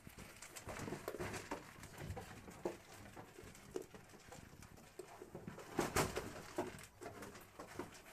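Goats eating dry corn kernels from a metal pan, with irregular crunching, clicks and scraping against the pan. A louder knock comes about six seconds in.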